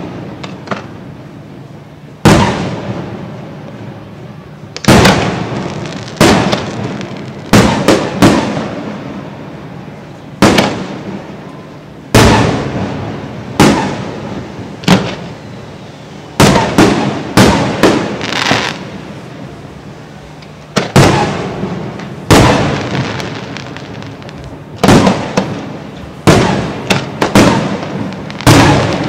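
Fireworks display: aerial shells bursting in loud bangs at irregular intervals, each followed by a crackling, echoing tail, with quick clusters of several bursts a few times.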